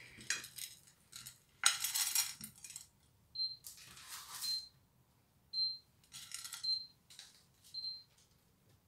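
Loose sunflower seeds rattling and scattering against a glass dish as a seed-coated loaf of dough is rolled in them and lifted out, in several short bursts of rustling and clinking. A short high beep repeats five times, about once a second, starting partway through.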